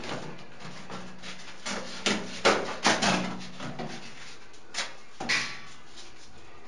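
Hand tiling work: a few short scrapes and knocks as ceramic tiles are handled and set against the wall above a bathtub. The loudest come in a cluster between two and three seconds in, with two more just after the middle.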